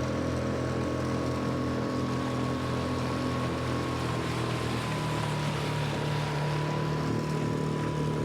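Jon boat's outboard motor running steadily under way, its note shifting slightly about halfway through.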